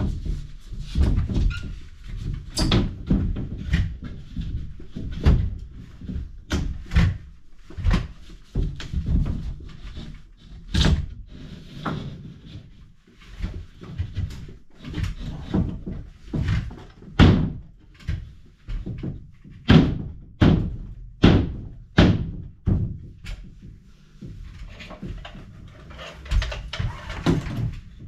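Repeated sharp knocks and thuds from renovation carpentry work, coming about once a second at uneven intervals, some ringing briefly.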